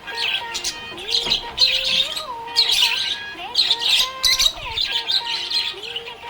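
Budgerigar chirping and twittering in quick bursts, over a tune whose notes step up and down.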